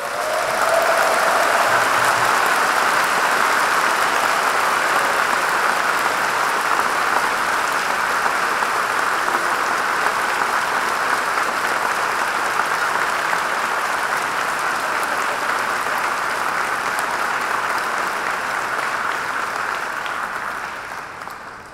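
Large audience applauding steadily for about twenty seconds, dying away near the end.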